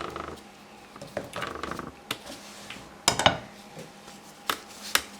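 Objects handled on a work table: rustling, then a few sharp knocks and clatters as things are picked up and set down.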